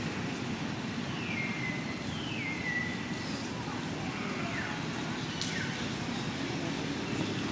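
Baby monkey crying: four short, high calls that each fall in pitch, spread over a few seconds, above a steady low background rumble, with one sharp click in the middle.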